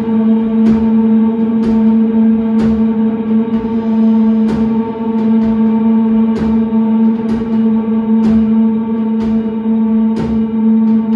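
Electric rock band holding a loud, sustained one-note drone on guitars and bass, with drum and cymbal hits about once a second.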